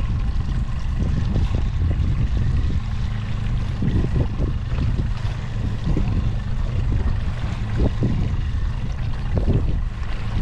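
Mercury 60 outboard motor running steadily at low boat speed, with wind noise and choppy water slapping against the hull in irregular knocks.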